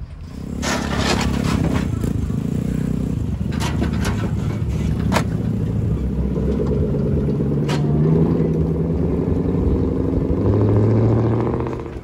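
Loud aftermarket exhausts of modified cars pulling away slowly one after another, the engine note rising and falling as they rev, with a few sharp clicks or knocks along the way.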